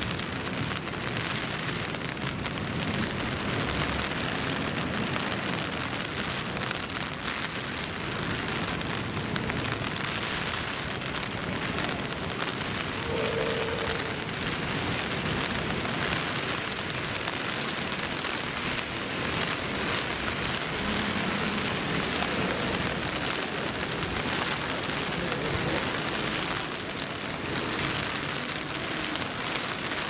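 Steady rain falling, an even hiss with no let-up.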